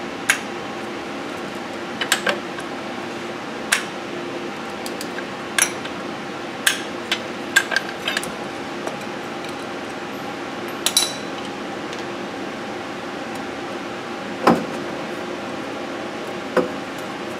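Scattered sharp metallic clinks and clanks of a ratchet and loosened wheel lug nuts being handled and set down on a concrete floor while a forklift wheel is taken off. A steady low hum runs underneath.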